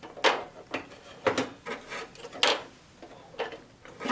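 About six sharp clicks and knocks at irregular intervals as hard plastic and metal parts of an electronic typewriter are handled and flipped into position while the platen is being refitted.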